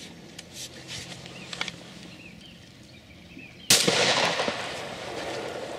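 A single shotgun shot fired at a mallard drake on the water, about two-thirds of the way in. It is sudden and very loud, the shot load spraying the water, and it trails off over a second or two.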